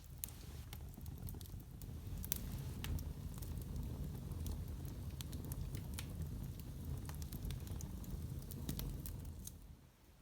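Wood fire crackling in a fireplace: scattered sharp pops and snaps over a low steady rumble, dropping away near the end.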